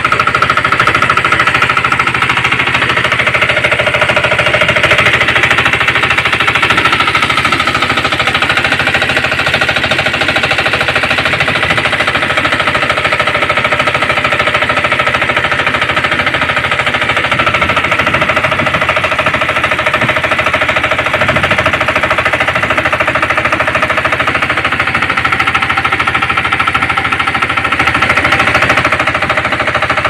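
Small engine-driven water pump running steadily, its engine giving a rapid, even knocking as it draws water out of the pit through its suction hose.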